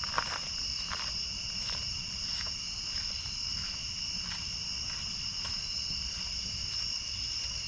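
Steady chorus of crickets, a continuous high trill in two pitches that doesn't let up, with faint soft knocks about every second over a low background rumble.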